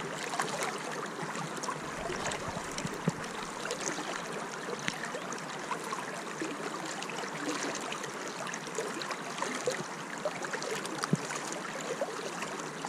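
River water rippling and lapping close to the microphone around a wader standing deep in the current, with many small splashes and ticks.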